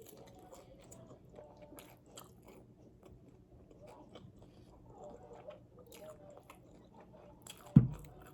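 Close-up chewing and biting of an extra-crispy fried chicken wing: soft crunches, clicks and wet mouth sounds. A single loud thump comes near the end.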